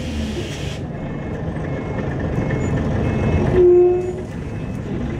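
Scania L94UB single-decker bus under way, its 9-litre five-cylinder diesel running steadily and heard from inside the saloon. A hiss of air fades out in the first second, and a short tonal toot, the loudest sound, comes about three and a half seconds in.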